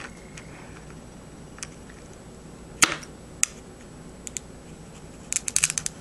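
Glass cutter working a small square of fusing glass: scattered sharp ticks as the glass cracks and chips along the score line, with one louder tick about three seconds in and a quick cluster of ticks near the end.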